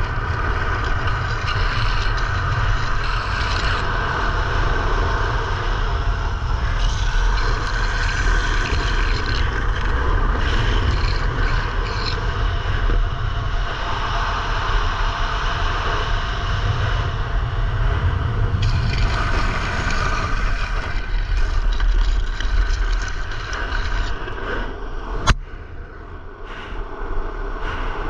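Downhill skateboard wheels roaring on rough asphalt at racing speed, mixed with heavy wind buffeting on a helmet-mounted camera. A single sharp click comes near the end, around a short quieter stretch.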